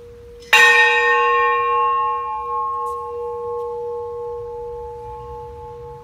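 A large hanging bell struck once by its clapper as its rope is pulled, about half a second in, then ringing out with a long, slowly fading hum.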